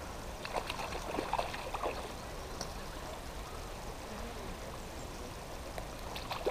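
Brief snatches of distant talk in the first two seconds over a steady outdoor background hiss.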